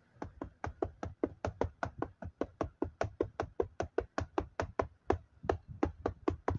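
Rapid, even knocking, about five light strikes a second, kept up steadily without a break.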